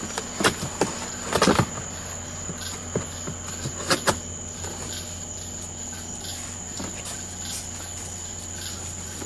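Cardboard box flaps being torn open by hand: a few sharp rips and crackles in the first four seconds, the loudest about a second and a half in. Behind it a steady high insect trill runs over a low hum.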